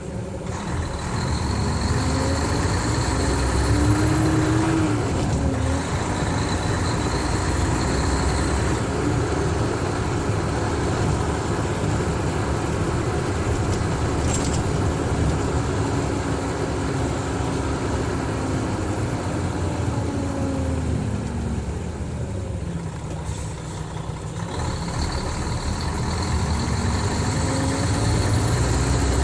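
Mercedes-Benz O500RSD coach's engine running under way. Its note climbs over the first few seconds, dips briefly about five seconds in as if at a gear change, and then holds steady. It eases down around twenty seconds in and climbs again near the end.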